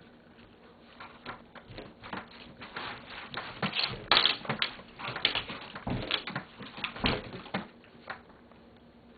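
Slime being kneaded and pulled by hand, giving off irregular sticky clicks and small pops that come faster and louder in the middle.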